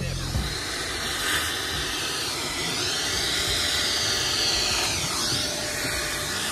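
Vacuum cleaner running with a steady rushing hiss while vacuuming a car's interior; the pitch of its whine slowly rises and falls.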